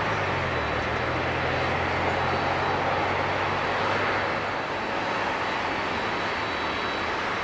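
Airbus A320-200 jet engines running as the airliner moves along the runway: a steady rush of engine noise with a thin high whine, and a low hum underneath that fades out about four seconds in.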